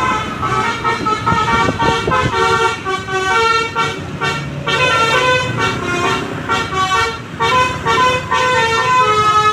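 Indonesian bus telolet horn, a multi-tone basuri air horn, playing a quick tune of short toots that jump from pitch to pitch several times a second over a low rumble.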